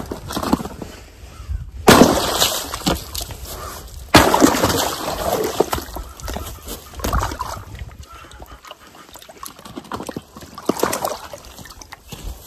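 Ice on a cattle water trough being smashed with a long-handled tool: two hard cracks, about two and about four seconds in, each followed by splashing. Then smaller knocks as broken ice chunks are pushed around and slosh in the water.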